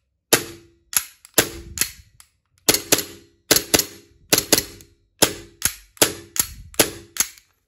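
The steel slide of a WE Glock 19 gas blowback airsoft pistol being worked by hand, giving a run of sharp metallic clacks, many in close pairs, as it goes back and snaps forward.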